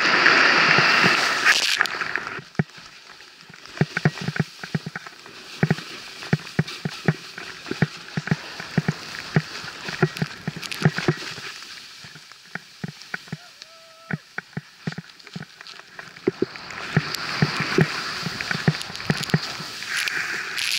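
Wind and snow rushing past a camera riding down a deep-powder slope: a loud hiss at the start and again for the last few seconds, with scattered sharp knocks and thumps in the quieter stretch between.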